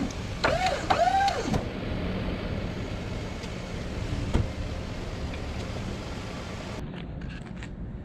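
Snowplow's electric hydraulic pump motor whining for about a second as the blade is worked, its pitch rising then dropping. The truck's engine idles steadily underneath, with a single sharp click about four seconds in.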